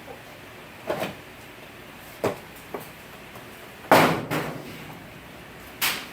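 Pine cones falling and knocking on a roof: about five separate hard knocks, the loudest about four seconds in with a short ringing decay.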